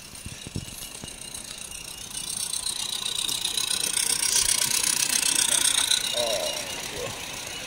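Garden-railway model train running past: a small locomotive hauling a string of loaded wagons, wheels rattling over the track. It grows louder to a peak about halfway through, then eases off.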